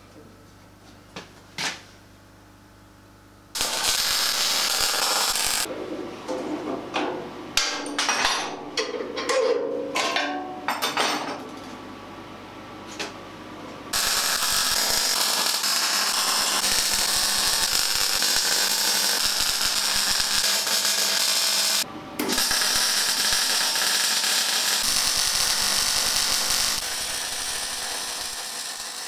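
A few light clicks and knocks, then MIG welding on a steel chassis: the arc crackling and hissing, first in a run of short, broken tack welds, then in long continuous beads with a brief break a little past the middle.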